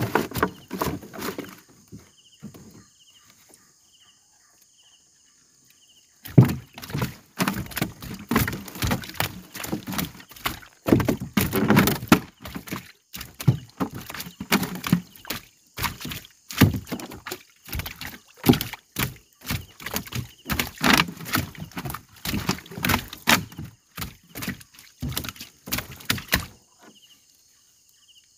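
Fishing net being worked from a small boat: a run of irregular knocks, rustles and splashes lasting about twenty seconds, starting about six seconds in. A steady high insect drone runs underneath.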